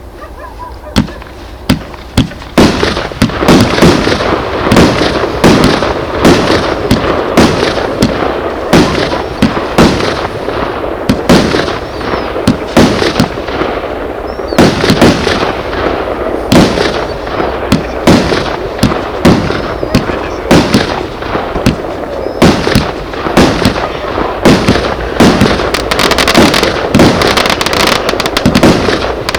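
49-shot firework cake of 25 mm calibre firing in rapid succession: sharp launch shots and bursts about two a second with a continuous hiss between them. Two single shots come about a second apart before the barrage starts about 2.5 seconds in.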